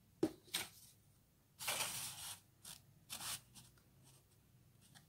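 Sheet paper rustling and crinkling as a folded paper tail piece is pushed into the body of a paper plane: two short crackles, then a longer rustle about one and a half seconds in, another about three seconds in, and a few faint ticks.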